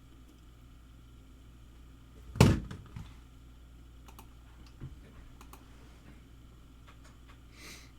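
A loud thump on a desk, followed by a few lighter knocks and scattered small clicks, as things are handled at a tabletop; a brief soft rustle near the end.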